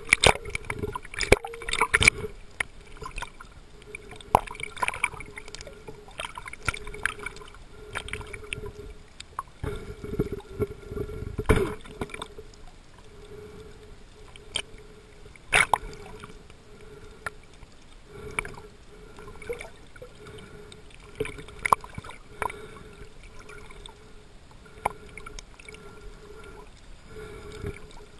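Muffled underwater sound picked up by a submerged camera: a steady watery hiss with irregular sharp clicks and pops, a few of them louder.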